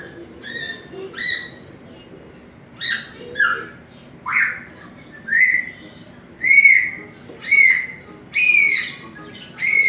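Young African grey parrot giving a string of short, arched whistles, about one a second. The whistles grow louder in the second half.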